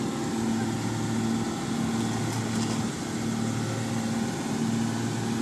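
Construction machine's engine running steadily, with a low hum that pulses about twice a second.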